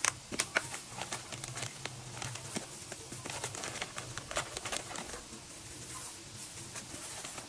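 Crinkling and rustling of a zip-top plastic freezer bag and a disposable plastic glove being handled, with many light clicks and taps throughout.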